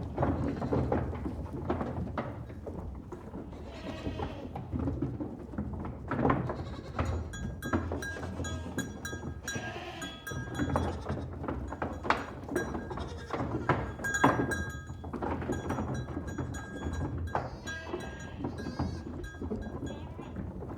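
A herd of goats moving along, with bleats now and then, many sharp knocks and clatters throughout, and repeated clear ringing tones.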